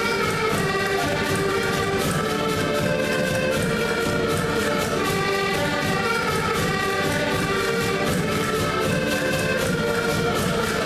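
A folk ensemble of several accordions and a bass drum playing a lively tune, the accordions holding chords and melody over a steady drum beat.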